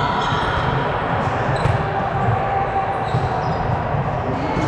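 Indoor gym during a volleyball game: a steady din of play, with a couple of sharp ball-contact smacks about a second in.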